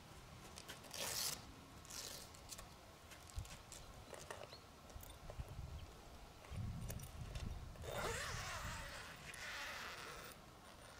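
Short zip-like scraping and rustling strokes of gear being handled on a car's roof rack: a few quick strokes, then a longer rustle near the end. Low wind rumble on the microphone underneath.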